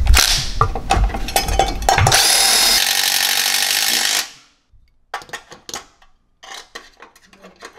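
Compact cordless power driver fastening a reservoir mounting bracket: a few short bursts, then a steady run of about two seconds that stops about four seconds in. Light clicks and knocks of parts being handled follow.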